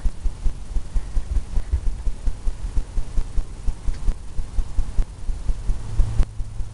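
Rapid, irregular low thumps, several a second, of a paintbrush dabbing paint onto a pre-stretched canvas on an easel. A low hum comes in near the end.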